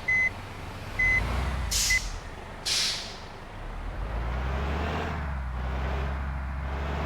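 Heavy bus idling with a low engine rumble, its air brakes giving two short hisses, while three short high beeps sound about once a second early on.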